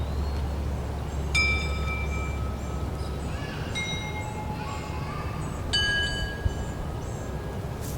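Metal chimes ringing: three separate struck tones about two seconds apart, each ringing out and fading.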